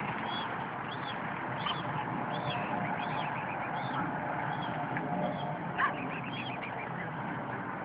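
Mute swan cygnets peeping: a string of short, high cheeps, roughly one a second, with a quick run of them about six seconds in.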